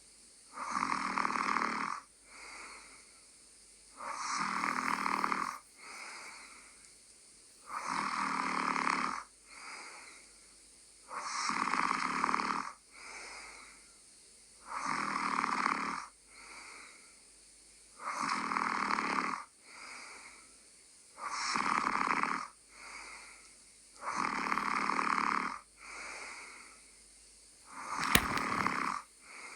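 A sleeper snoring in a steady rhythm: a loud rasping snore about every three and a half seconds, each followed by a quieter, shorter breath out. A brief sharp click comes near the end.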